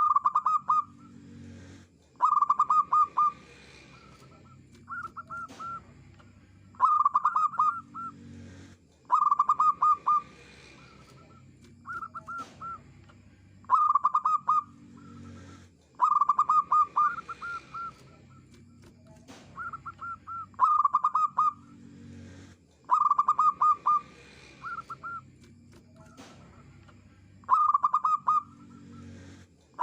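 Zebra dove (perkutut) cooing: short staccato phrases of rapid coo notes, repeated about every two seconds, with louder phrases alternating with softer ones.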